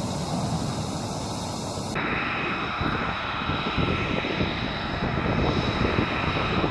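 Jet fighter engine running: a steady rush of noise that changes abruptly about two seconds in, after which a steady high whine rides over it.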